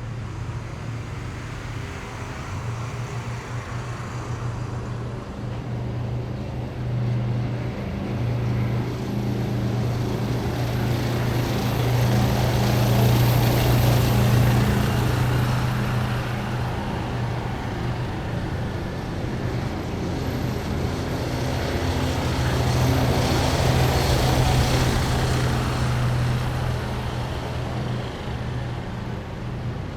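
Heavy military vehicles driving past in a column, their engines droning at a low steady pitch with tyre and road noise, swelling as each one passes, loudest about halfway through and again a little later.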